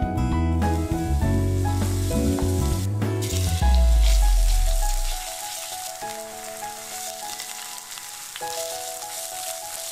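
Garlic, sliced shiitake mushrooms and then mixed vegetables sizzling as they fry in oil in a pan, under background music. The sizzle stands out more clearly from about three and a half seconds in, when the music's bass drops away.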